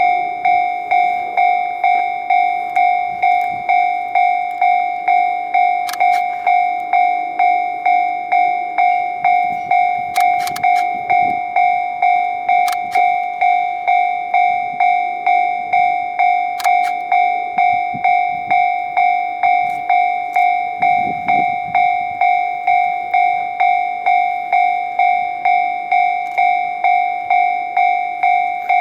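Japanese level-crossing warning bell ringing steadily: a repeated electronic clang just under twice a second, signalling that a train is approaching. A few sharp clicks come through now and then.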